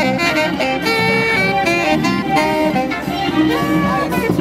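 Tenor saxophone played live, a jazzy melody of notes stepping up and down.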